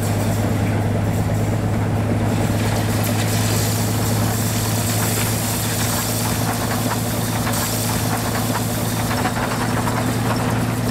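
Rotary snow plow working through deep snow: a steady engine drone under a hiss of thrown snow that grows brighter from about two seconds in.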